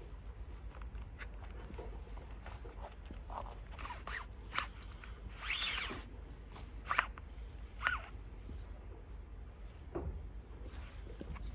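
Hand work on a leather boot: scattered scrapes, rubs and small clicks of tools on leather, with one longer scraping rasp about five and a half seconds in.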